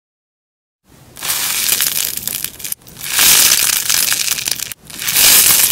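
Crunchy slime being squeezed and stretched by hand, making loud, dense crackling in three long squeezes after about a second of silence.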